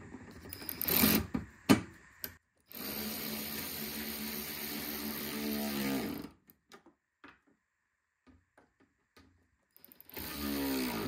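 A hand-held power driver's motor running down the headlight assembly's mounting bolts in two runs. The first run lasts about three and a half seconds, its pitch changing as it ends; a shorter run follows near the end, after a few handling clicks at the start.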